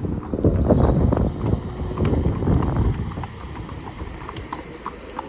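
Horses' hooves clip-clopping on a tarmac road, under a loud low rumble of wind and traffic noise during the first three seconds. Once the rumble drops, the hoof strikes come through as sharp, evenly spaced clicks.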